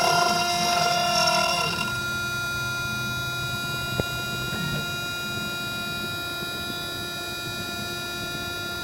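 1.5 kW CNC milling spindle running with a steady whine made of several fixed pitches. Over the first two seconds a louder, wavering sound rides on it, typical of the end mill cutting aluminium. Then the whine continues alone, with one short click about four seconds in.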